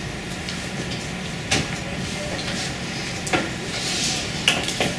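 Classroom room tone: a steady hiss and low hum, with a few short clicks or knocks about one and a half, three and a half, and four and a half seconds in.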